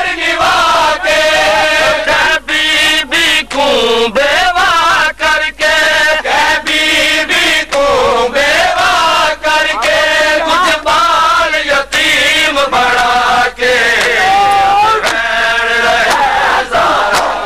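Men's voices chanting a Saraiki noha, a Shia mourning lament, in a sustained melodic line. Frequent sharp slaps of matam chest-beating keep time under the singing.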